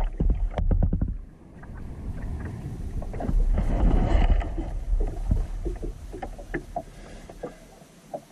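Kayak paddling on calm water: the paddle dips and splashes, with short drips and small knocks. A low rumble swells in the first second and again around three to five seconds in, then the sounds fade near the end.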